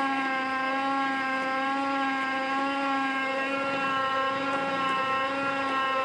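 A motor humming at a steady, unchanging pitch.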